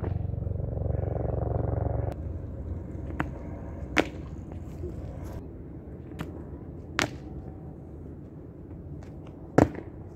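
A steady low hum that stops about two seconds in, then four sharp cracks spaced several seconds apart, the loudest near the end.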